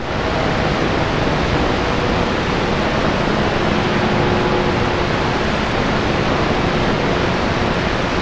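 Grundig S350DL shortwave receiver tuned to the 27 MHz CB band, giving steady static hiss between transmissions, with a few faint steady whistles under the noise. The hiss is band noise (QRN) coming through the radio's wide filter while no station is transmitting.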